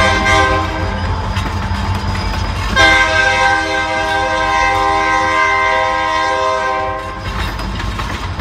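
Freight train's lead locomotive sounding its air horn: one blast that ends about a second in, then a long steady blast starting about three seconds in and lasting about four seconds. Under the horn is the steady low rumble of the locomotives and loaded-free hopper cars rolling past.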